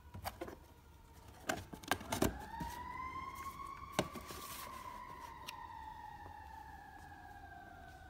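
Plastic turn signal lamp and cardboard box knocking and tapping as they are handled and the lamp is set down, in a few sharp taps, the loudest about two seconds in and a last one about four seconds in. Under them a single wailing tone that rises briefly and then slowly falls in pitch, like a distant siren winding down.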